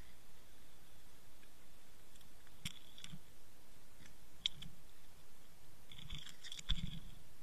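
Underwater sound through a camera on a fishing line: a steady hiss with a few scattered sharp clicks and soft knocks, then a quick cluster of clicks and knocks near the end as the bait rig settles among weed and rock.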